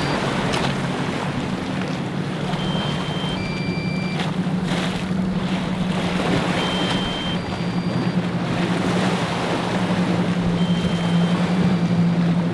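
Motorboat engines running with a steady drone over the rush of water and wind, the drone growing louder near the end, with a few brief splashes as a hull meets the waves.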